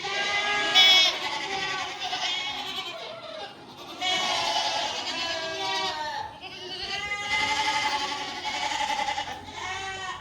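A herd of dairy goats bleating, many calls overlapping almost without a break.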